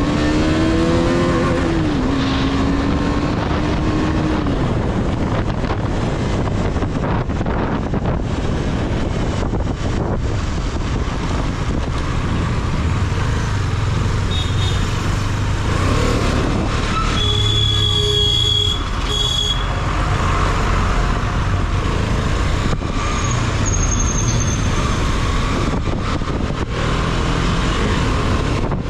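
KTM 250 Duke motorcycle's single-cylinder engine running, its pitch rising and falling in the first few seconds, over a steady loud rushing noise.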